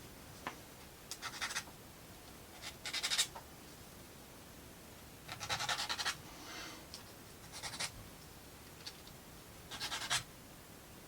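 Plywood model-kit parts being handled and rubbed together: about five short scratchy strokes a second or two apart, with a few light clicks in between.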